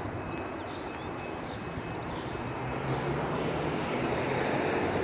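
Street traffic noise, with a vehicle's engine passing and growing louder in the second half.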